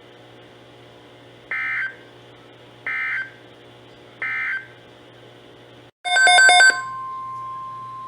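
Three short bursts of Emergency Alert System end-of-message data tones, about a second and a half apart, over a faint steady hum. Near the end comes a brief, louder cluster of pulsed tones, then the steady 1050 Hz NOAA Weather Radio alert tone begins for the next alert.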